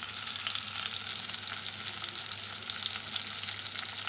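Onion wedges frying in hot mustard oil in an iron kadai, a steady crackling sizzle, while a spatula stirs them.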